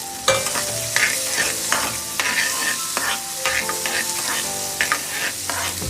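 Chopped onion, chili and capsicum sizzling in melted butter in a pan, frying to soften, with a steady hiss. A spatula stirs them, scraping and clicking against the pan many times.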